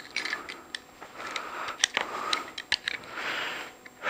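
Cardboard packaging being handled: rustling and scraping with scattered light taps and clicks.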